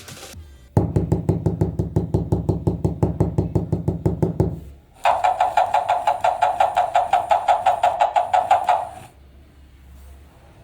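An electric toy's mechanism knocking rapidly, about six strokes a second, in two runs of about four seconds each. The first run is lower-pitched; the second is higher and has a thin high whine under it, and it stops about nine seconds in.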